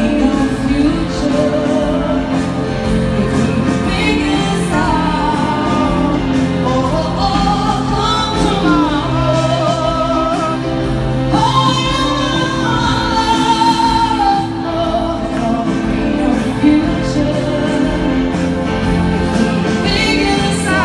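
Live female pop vocal singing a slow song, with held notes sung with vibrato, over band accompaniment, heard from the crowd in a large arena.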